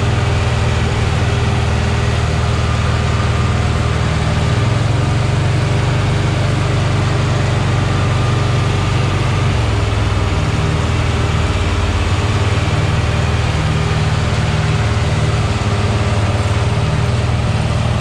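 John Deere 4440 tractor's turbocharged six-cylinder diesel running steadily while pulling a hay mower through a field of clover, the engine's low drone mixed with the mower's running noise.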